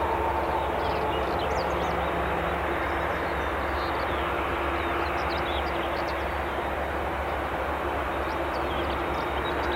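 Jet engines of a Boeing 787-8 running at takeoff thrust: a steady, even jet noise with a faint hum.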